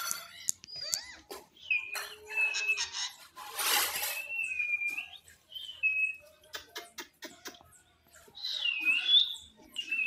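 Indian ringneck parakeet giving short, high whistled calls, several held notes of about half a second each, with a harsh rasping burst about four seconds in and a rising-and-falling call near the end.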